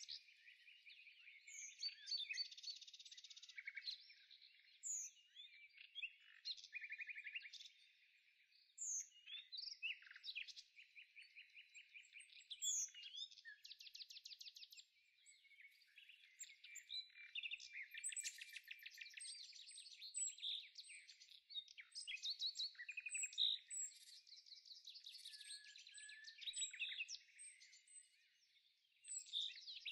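Songbirds singing: a continuous stream of chirps, rapid trills and short slurred whistles.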